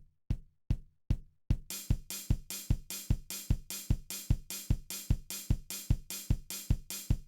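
Drum machine beat: a kick drum on every beat, about two and a half a second, joined about one and a half seconds in by hissing hi-hat strokes on each beat.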